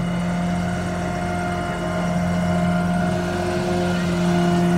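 Idling vehicle engine: a steady, even drone with a constant hum, joined by a second steady tone about three seconds in.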